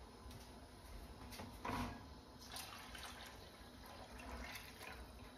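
Beef stock being poured into a small saucepan of reducing red wine and stirred in with a wooden spoon: faint pouring and splashing of liquid, with a brief louder sound about a second and a half in.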